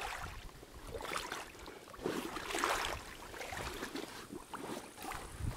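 Wading steps and splashing in shallow water beside an inflatable boat: irregular sloshing, loudest about two to three seconds in.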